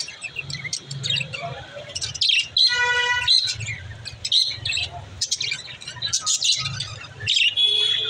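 A flock of budgerigars chattering, with quick high chirps and warbles throughout. A longer, buzzy call stands out about three seconds in, and another comes near the end.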